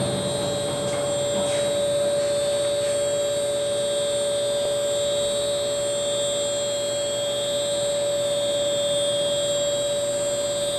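Dough trough hoist's electric drive running steadily as it lifts the trough, a constant hum with a steady whine.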